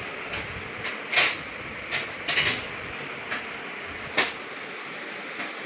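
Several short, sharp clicks and knocks over a steady hiss, the loudest about a second in.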